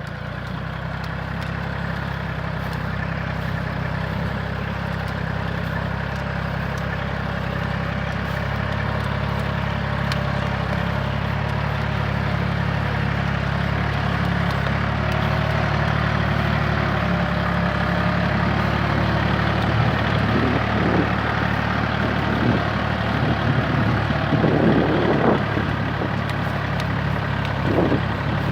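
Kubota tractor's diesel engine running steadily under load while ploughing out cassava, slowly growing louder. Near the end, a few short rising sounds rise above the engine.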